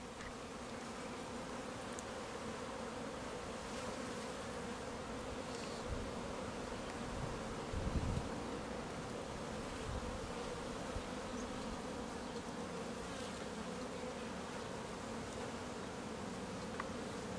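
A honeybee colony buzzing steadily on an open hive frame, a continuous hum of many bees at once. A few brief low bumps come around the middle.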